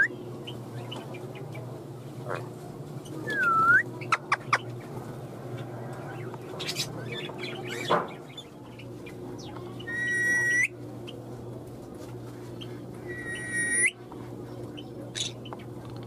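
Rose-ringed parakeet calling: a short curved whistle, then a few sharp clicks about four seconds in, and two longer, held, harsh calls later on, the second ending with an upturn. A steady low hum runs underneath.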